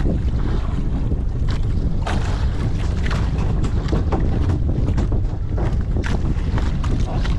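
Small boat under way at sea: a steady low rumble with heavy wind buffeting the microphone and irregular splashes of water.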